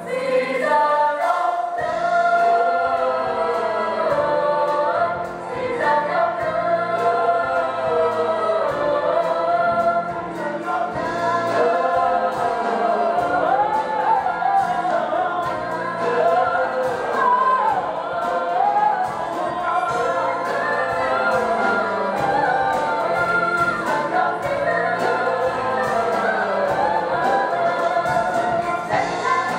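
Large mixed-voice ensemble singing a Broadway number in chorus, backed by a live band with a steady beat.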